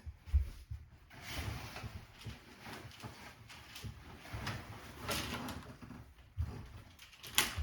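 Handling noise from the animatronic's parts being adjusted by hand: irregular rustling and soft knocks, with a sharper click near the end.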